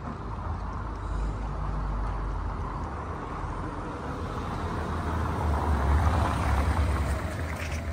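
Steady outdoor street noise with a low rumble, swelling to its loudest about six seconds in.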